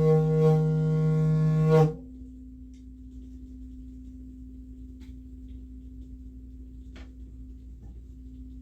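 A sound-bath drone with many overtones and a slow pulsing swell stops abruptly about two seconds in, leaving a single soft steady tone ringing on. A couple of faint clicks come later.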